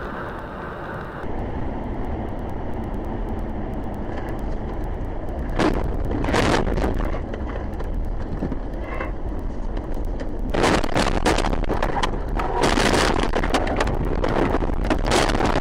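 A car heard from its own dashcam on a snowy road: steady road and engine noise, then from about ten seconds in a long stretch of louder rough noise and knocks as the car leaves the road and rolls over.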